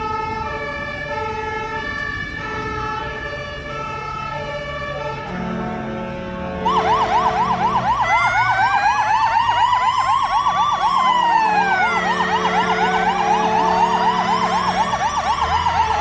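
Emergency-vehicle sirens of an approaching convoy. At first a two-tone siren alternates between a high and a low note. About seven seconds in, louder sirens join: one in a fast yelp and others in slow rising and falling wails, all sounding together.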